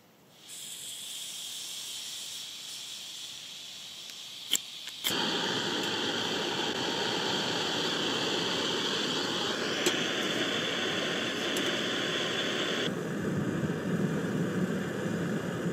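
Small canister-top backpacking gas stove: gas hissing from the opened valve, a sharp click about four and a half seconds in as it is lit, then the burner running with a steady loud rush. Near the end its sound turns lower, as the pot of water is set on the flame.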